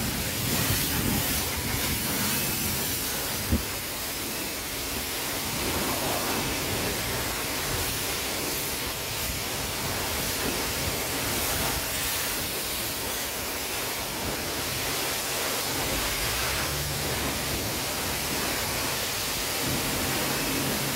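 Self-serve car wash high-pressure wand spraying water onto a car, a steady hiss of spray. A single sharp knock about three and a half seconds in.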